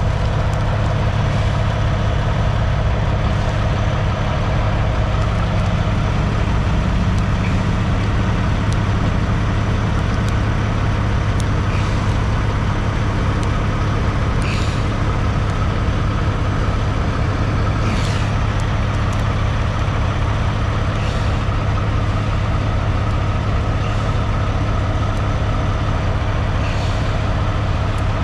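Semi truck's diesel engine idling steadily, a continuous low hum. A few faint short ticks and crackles come through it as decal transfer tape is peeled and smoothed by hand.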